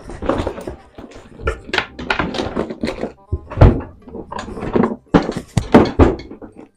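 A run of dull thuds and knocks, the heaviest about three and a half seconds in and again near six seconds, with voices and music faintly under them.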